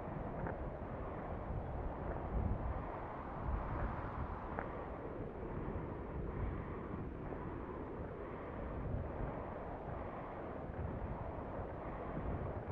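Wind buffeting the microphone outdoors, a steady gusty rush with no clear high end.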